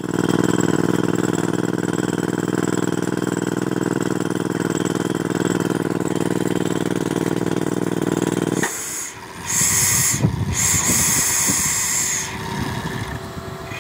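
Pneumatic crawler rock drill hammering steadily into rock, cutting off suddenly about two-thirds of the way through. Compressed air then hisses in two bursts.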